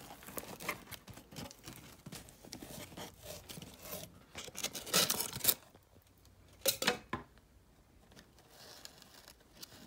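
Cardboard shipping box being opened by hand: flaps scraping and rustling, with tearing sounds. The loudest scrapes come about five and seven seconds in.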